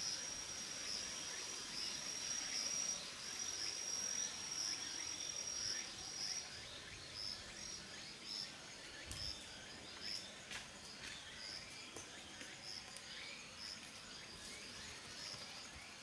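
Insects singing: a steady high-pitched trill for the first six seconds or so, then breaking into a string of short, evenly repeated chirps at the same pitch, with a few faint clicks.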